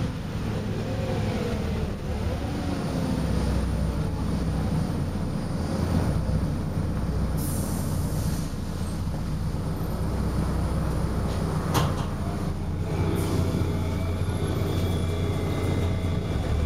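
Volvo B7RLE single-deck bus heard from inside the saloon while on the move: the six-cylinder diesel engine drones low and steadily under road noise. A short hiss comes about halfway through and a sharp click a little later. Near the end a steady high whine sets in.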